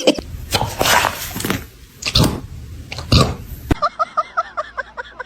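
Dog making rough, throaty grunts and groans, loudest about one, two and three seconds in, while having its tummy rubbed. After an abrupt cut, a quick run of quieter, high, evenly repeated calls.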